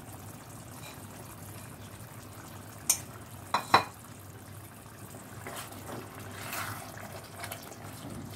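Pointed-gourd curry simmering in a pan with a steady low hiss. About three seconds in, a spoon clinks sharply against the pan three times, followed by softer stirring and scraping.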